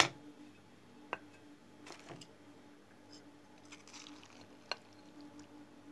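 A ceramic dinner plate set down on the table with a sharp knock, followed by a few light clicks and soft wet squelches of a metal spoon in chopped, juicy fruit chaat in a glass bowl.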